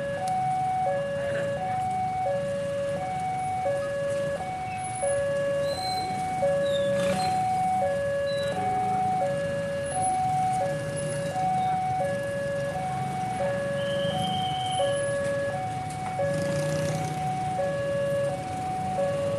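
Railway level-crossing warning alarm sounding: an electronic signal alternating between a lower and a higher tone, about one pair every one and a half seconds, over the low rumble of motorcycle engines.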